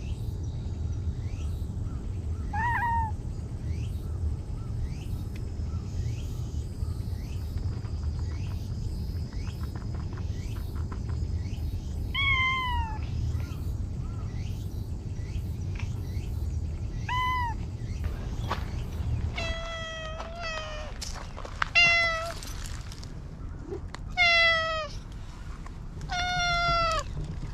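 Stray cats meowing. First a few short, faint meows over a steady low rumble; then, after a cut, a run of louder meows, each falling in pitch, every one to three seconds.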